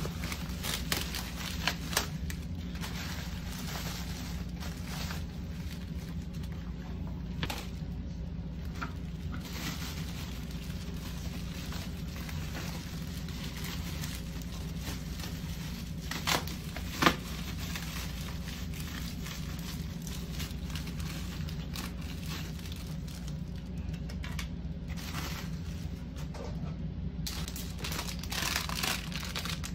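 Clear plastic packaging crinkling and rustling as it is handled, with scattered sharp clicks, the loudest about 17 seconds in, and more crinkling near the end. A steady low hum runs underneath.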